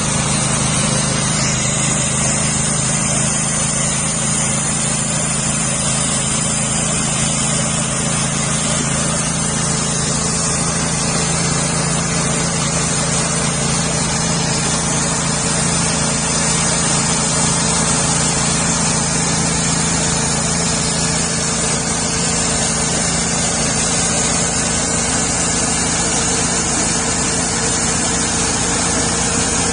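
Homemade sawmill with a small engine running steadily at a constant speed, with no pauses or changes in pitch.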